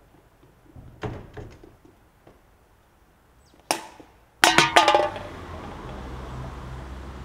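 Light footsteps, then one sharp kick of an empty metal drink can, which clatters and rings as it bounces across asphalt. A steady low background rumble comes in just after.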